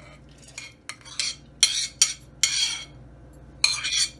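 A metal spoon scraping and knocking against a strainer and a steel grinder jar as soaked urad dal is scraped into the jar: a string of irregular short scrapes and clinks, the loudest in the middle and near the end.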